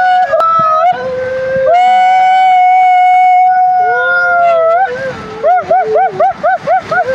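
A man yelling long, loud held cries while riding down a water slide, each cry steady in pitch for a second or more. Near the end the cry wobbles rapidly up and down several times a second.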